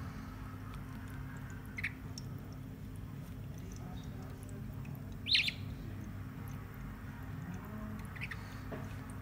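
Young budgerigar giving three short, high chirps, the loudest about halfway through, over a steady low background hum.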